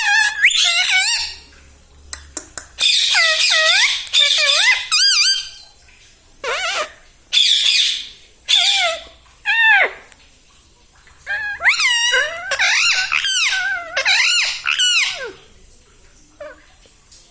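Indian ringneck parrot calling in a run of high, wavering squeaky bursts, each about one to two seconds long, with short pauses between them and a few faint chirps near the end.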